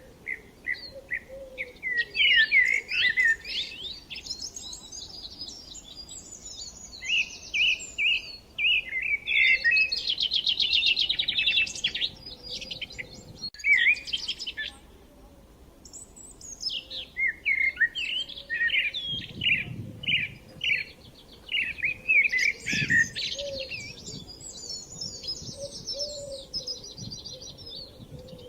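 Songbirds singing: phrases of quick repeated chirps and buzzy trills, broken by short pauses.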